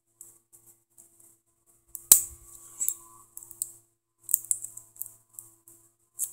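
Small metallic clicks and clacks of a padlock being handled and worked in the fingers, with one sharper click about two seconds in and a quick run of clicks a little past the middle.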